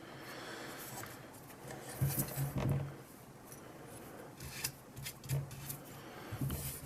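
Handling noise from a Blue Yeti USB microphone and its packaging being turned over by hand: rubbing and scraping with scattered light clicks and knocks, the loudest about two seconds in.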